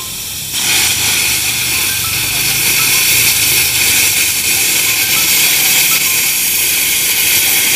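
Air plasma cutter cutting through 10 mm steel plate: the compressed-air plasma arc gives a loud, steady hiss that jumps up in level about half a second in as the arc bites into the steel and holds steady through the cut.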